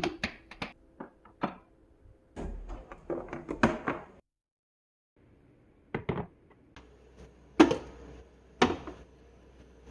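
A series of sharp knocks and clacks of hard objects being handled and set down, uneven in timing, with a short dead-silent break near the middle.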